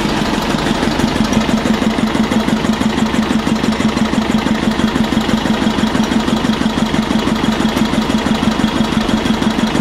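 Slow-speed Listeroid single-cylinder diesel engine driving a generator, running steadily with an even, regular beat. It is running on a crude-oil and kerosene fuel mix and sounds no different from its run on normal diesel.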